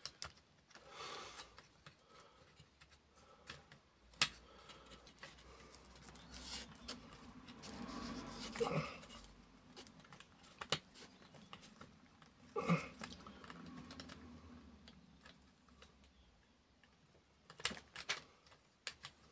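Small clicks, taps and handling noises as a wheel axle is worked through a model locomotive chassis by hand, with a sharp click about four seconds in and another about twelve seconds in.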